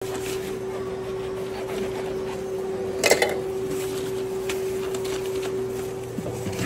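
A knife sawing through a sandwich roll, then gloved hands rubbing and pressing the bread on deli paper, with a louder crinkly rustle about three seconds in. A steady hum runs underneath.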